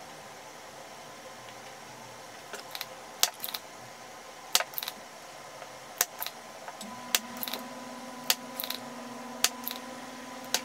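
Soldering iron working solder joints on a circuit board: scattered small, sharp clicks and ticks, about fifteen over several seconds. A low steady hum joins about seven seconds in.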